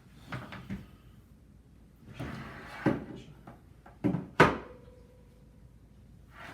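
Knocks and clatter of classroom materials being handled and set down on a table, the sharpest and loudest knock about four and a half seconds in. Right after it a steady electronic tone sounds for about two seconds, then stops.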